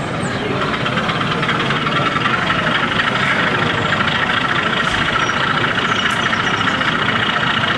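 N gauge model train running on a layout: a steady mechanical running sound from the motor and wheels, growing a little louder about a second in as it draws near.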